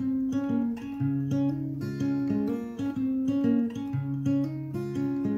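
Guitar music: plucked notes and chords over a repeating bass line. This is the instrumental introduction to a hymn, before the singing begins.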